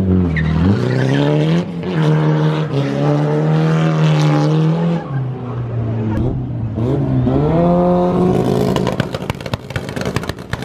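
A car's engine revving hard as it pulls away, its pitch climbing and dropping through gear changes, then a second hard rev about seven seconds in. Rapid crackling follows near the end.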